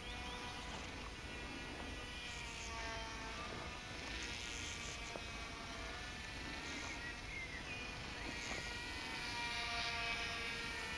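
Silverlit X-Twin Turbo-Fury RC plane's twin small electric motors and propellers buzzing in flight, a thin whine whose pitch wavers slowly as the plane throttles and passes. It grows louder near the end as the plane comes close.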